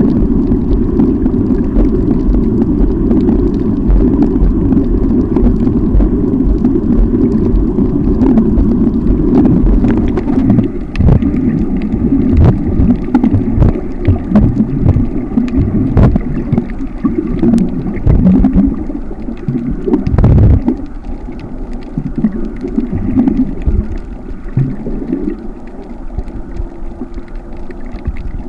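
Muffled, low rushing of water heard underwater through a camera's waterproof housing, broken by irregular knocks and thumps, and growing quieter in the last few seconds.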